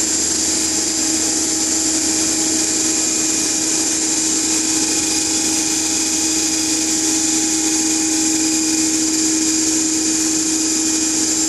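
Motor-alternator set (DC shunt motor coupled to an alternator) running at steady speed while the alternator generates: a constant machine whine over an even rushing noise, with no change in speed.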